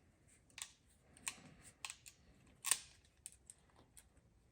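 Short irregular clicks and light rattles of a spark plug wire terminal and small hand tools being handled, about eight in all, the loudest about two-thirds of the way through.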